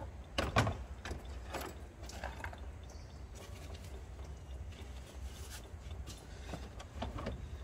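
Hand tools clicking and clinking against metal as coolant hose clamps are worked loose: a few sharp clicks spread over the seconds, the loudest about half a second in, over a low steady hum.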